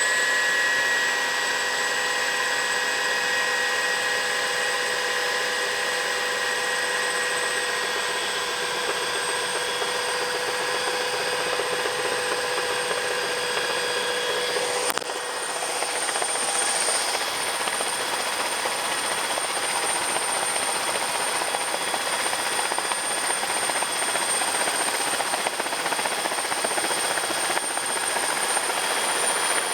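Sikorsky S-58T turbine helicopter running steadily: a high, steady turbine whine over dense rotor and engine noise. About halfway through, the sound changes abruptly as some of the whining tones drop out and others shift.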